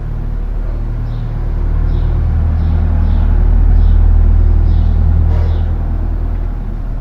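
Vintage CEMAF electric fan running: a steady motor hum with a low rumble of moving air, swelling louder around the middle and easing off again.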